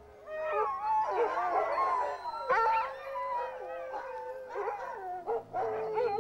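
A chorus of Alaskan husky sled dogs howling together, many overlapping wavering voices, with a sharp rising yelp about two and a half seconds in.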